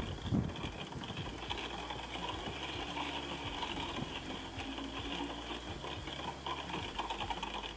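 A small machine running steadily, with a light, rapid ticking over a low hum.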